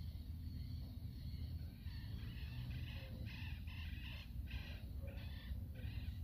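A bird calling in a quick series of short, repeated calls, beginning about two seconds in, over a steady low rumble.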